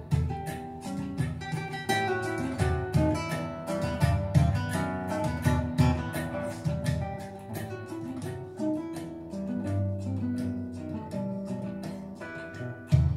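Acoustic guitar music, plucked notes over low bass notes, played back through a hi-fi system's floorstanding loudspeakers in a listening room.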